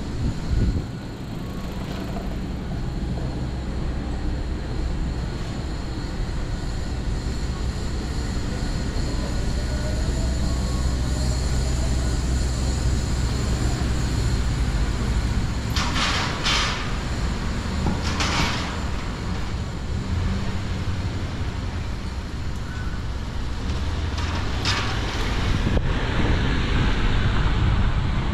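Street ambience with a steady low rumble of motor vehicles, swelling around the middle. A few short hisses come in the second half.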